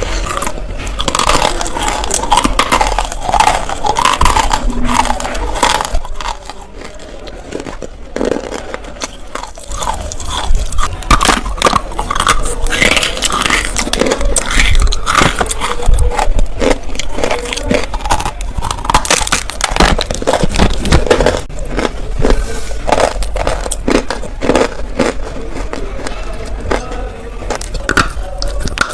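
Close-miked biting and crunching of dry clay chunks coated in multani mitti (Fuller's earth) powder: dense, crisp, crumbly crunches and scraping bites, with a quieter, softer stretch of chewing about a quarter of the way in.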